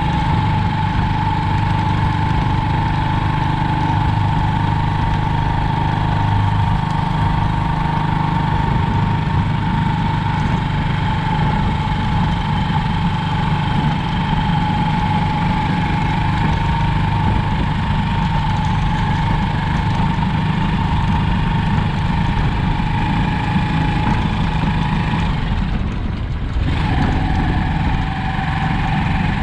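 A vehicle engine running steadily at an even pitch, with a brief dip in level near the end.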